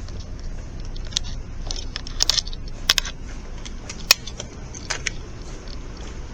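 A handful of short, sharp clicks and clinks at irregular intervals over a steady low hum.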